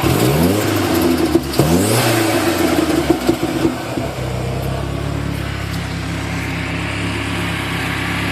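Turbocharged Ford Ranger engine revved twice in quick succession from idle, held briefly, then dropping back to a steady idle; a faint high whistle rises with the second rev.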